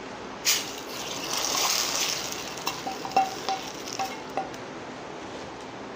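Hot oil tempering of fried onion and curry leaves poured onto a simmering curry: a sudden sizzle about half a second in that swells and then fades out over a couple of seconds, followed by about five light metal clinks.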